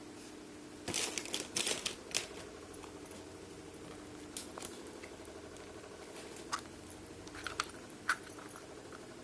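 Plastic packaging and small plastic toy pieces being handled: a flurry of crinkling and clicking about a second in, then a few sharp separate clicks, over a steady low hum.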